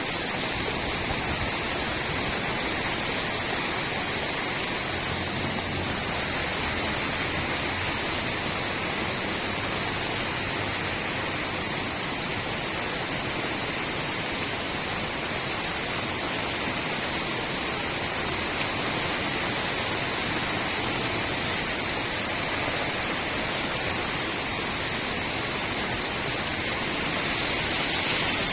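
Steady rain falling on a street, with water gurgling as it runs off: an even hiss that grows a little louder near the end.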